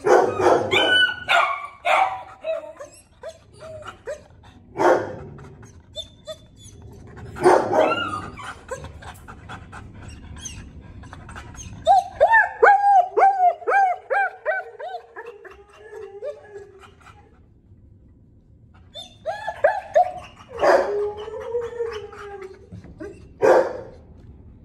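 Dogs barking in short bursts, with a rapid run of high yips in the middle and a drawn-out whine near the end.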